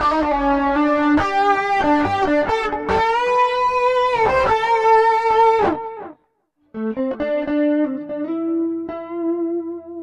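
Electric guitar played through a Zoom G1Four multi-effects pedal on a patch with compressor on, overdrive, chorus and tape echo: sustained single-note lead lines with a note bent upward about three seconds in. The sound cuts out for about half a second past the middle, then more held notes ring and fade away near the end.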